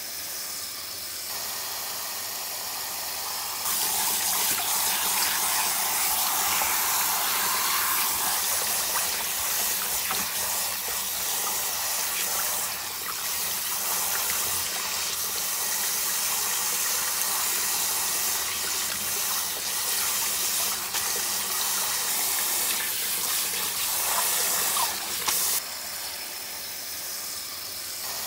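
Running tap water pouring and splashing onto leafy vegetables in a stainless steel bowl. The rush gets louder about four seconds in and drops back a few seconds before the end.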